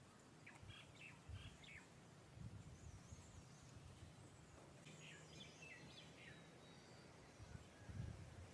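Faint songbirds chirping in the forest: a quick run of short high chirps in the first two seconds and another around the middle, over a faint low rumble.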